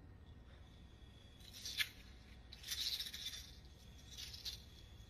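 Faint swishes and rustles of a wushu spear being whirled and thrust: three short hissing bursts, the sharpest about two seconds in.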